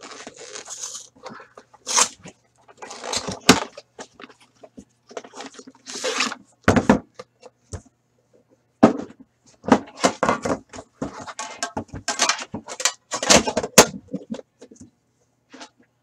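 Cardboard card-box packaging being pulled apart and crumpled by hand, then a metal card tin handled and set on the table: irregular rustling and scraping broken by sharp knocks and clicks.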